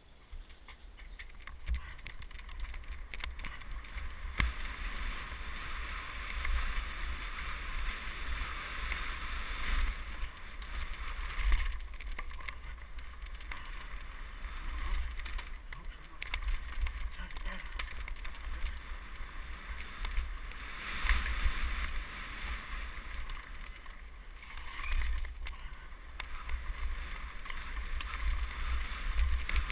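Downhill mountain bike ridden fast down a dirt trail, heard from a helmet-mounted camera: a steady low rumble of wind and tyre noise, surging with speed, with frequent knocks and rattles as the bike hits bumps.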